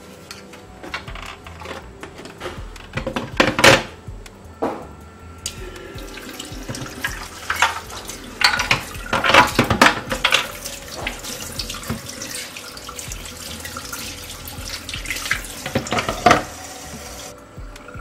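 Tap water running into a stainless steel sink as the plastic halves of a radio case are rinsed under it, with clattering knocks of the plastic parts against the sink. The tap comes on about five seconds in and stops shortly before the end.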